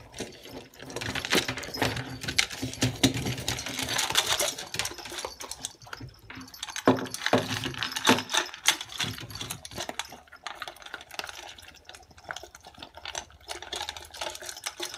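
Two puppies eating dry kibble from a stainless steel bowl: a rapid, uneven run of crunching and clicking as teeth and food knock against the metal.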